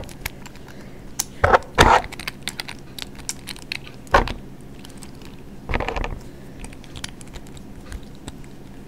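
Small plastic Beyblade parts being handled: scattered light clicks and rattles, with a few louder knocks about a second and a half, two, four and six seconds in.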